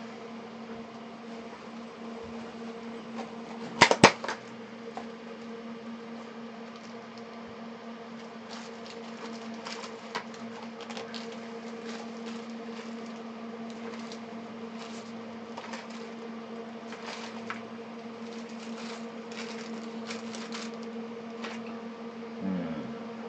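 Small electronic parts being sorted and handled in a box of spare components: scattered small clicks and rattles over a steady low hum, with two sharp knocks about four seconds in.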